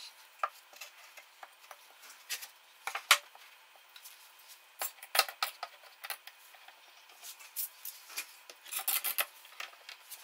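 Wooden blocks and a board handled and knocked against the inside of a wooden chest: scattered clicks, with a louder knock about three seconds in and another about five seconds in. Near the end, bar clamps are tightened onto the board in a quick run of clicks.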